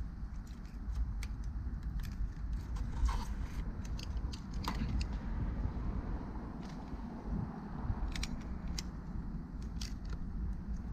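Scattered light clicks and scrapes of a utility knife blade cutting away old windshield adhesive along the frame, over a steady low rumble.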